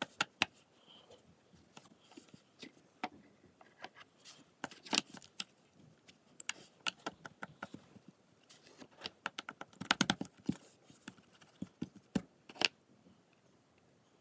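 Brown slime being squeezed and pressed by hand, giving irregular sticky clicks and pops, thickest about ten seconds in and stopping near the end.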